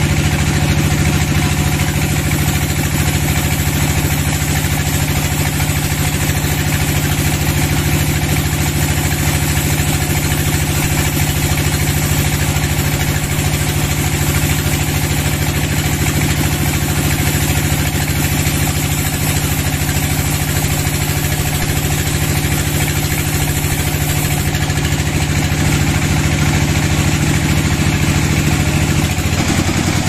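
Large band sawmill running steadily with its blade cutting a long slab from a teak log, a continuous machine drone. The drone shifts in tone near the end.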